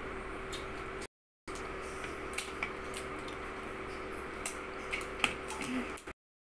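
Cooked crabs being cracked and picked apart by hand: scattered small clicks and crackles of shell over a steady faint hum. The sound cuts out completely twice, about a second in and near the end.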